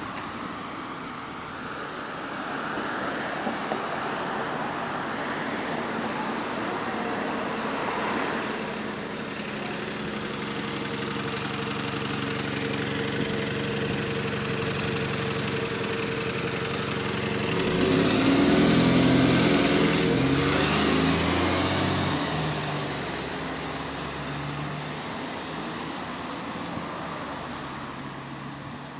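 Alexander Dennis Enviro400 double-decker bus engine idling with its hydraulic cooling fan whirring; the fan cuts out. About eighteen seconds in, the bus pulls away, and its engine note rises in steps through the gears, the loudest part, before fading into the distance.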